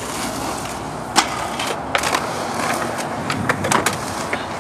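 Roller skate wheels rolling and carving on smooth concrete, a steady rolling noise with several sharp clicks, the loudest about a second in.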